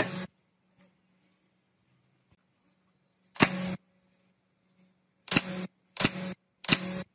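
Pneumatic nail gun firing nails into an oak frame. Each shot is a sharp crack followed by a short hiss of exhaust air. The tail of one shot comes at the very start, another about three and a half seconds in, and three more in quick succession near the end, about two-thirds of a second apart.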